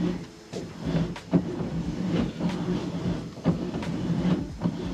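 Electric power steering (EPAS) conversion on an old Nissan Micra humming steadily while the steering wheel is turned with the assist at maximum, with irregular knocks and clicks from the steering.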